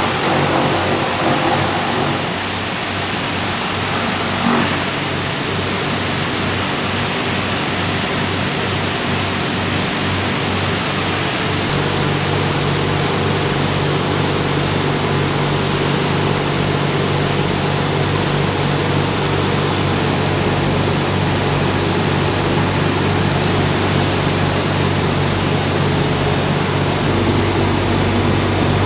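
Milling-plant machinery running: a loud, steady mix of electric-motor hum and grinding and air-rush noise. The low hum grows stronger about twelve seconds in and shifts again near the end.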